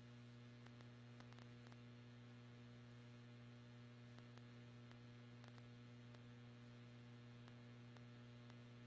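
Near silence with a steady low electrical mains hum and a few faint scattered ticks.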